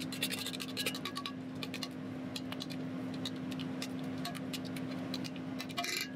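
A utensil scraping and tapping thick Greek yogurt around the inside of a stainless steel mixing bowl in quick, irregular strokes, spreading it into a thin layer. A steady low hum runs underneath.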